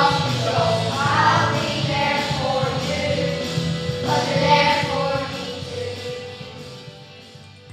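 A group of children singing a song together as a choir, with music under the voices; the singing stops and the sound dies away near the end.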